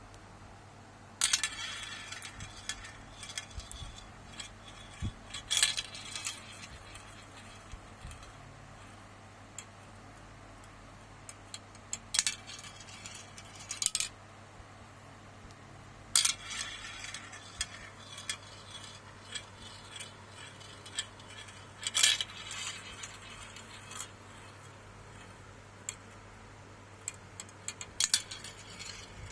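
Marbles rolling down a marble run track, clicking and clattering against the track and each other in several bursts, with a steady low hum underneath.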